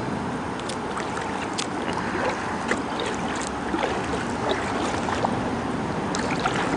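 Kayak being paddled: water trickling and splashing off the paddle blades in small irregular ticks over a steady background hiss.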